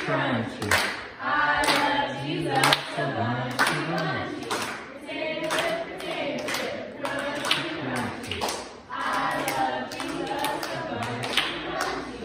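Voices singing a children's worship song without instruments, with steady hand claps about twice a second.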